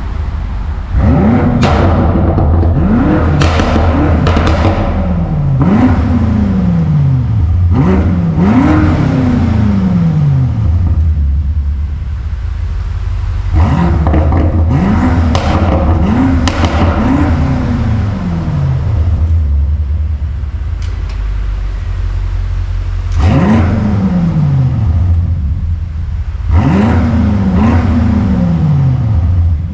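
BMW M5 Competition (F90) 4.4-litre twin-turbo V8 being revved over a low idle rumble. The revs come in three bursts of several blips each, the pitch rising quickly on every blip and sinking back more slowly to idle.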